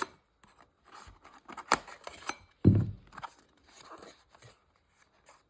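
Hands handling a just-opened cardboard box and its contents: rustling, scraping and scattered clicks, with a sharp click near the middle and a dull thump a moment later.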